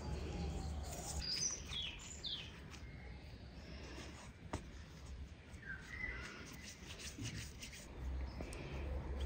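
Small birds chirping while hands rub, press and shape soft yeast dough on a floured wooden board, with faint rubbing and tapping. A low rumble comes in at the start and again near the end.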